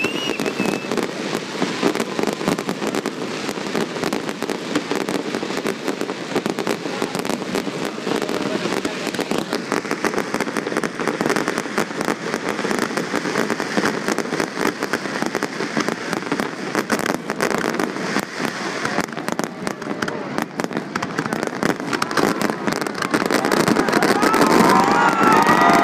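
A fireworks display going off: a dense, continuous run of pops, bangs and crackles. Voices come in near the end.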